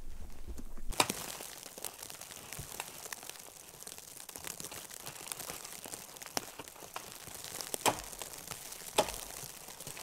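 Conifer boughs rustling and tearing as they are snapped off a tree by hand, with a few sharp cracks of breaking branches.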